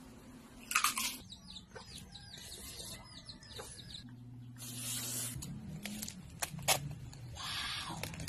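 Chickens clucking in a series of short calls, mixed with short crunching sounds of bites into crispy fried pork.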